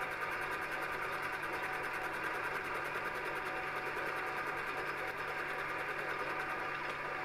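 Metal lathe running steadily while a turning tool faces off the end of a mild steel blank: a steady hum with a faint, fast, even ticking.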